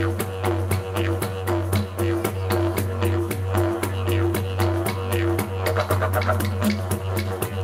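Droning instrumental music: a steady low drone with a repeating pulse in its overtones and a fast, even clicking beat over it.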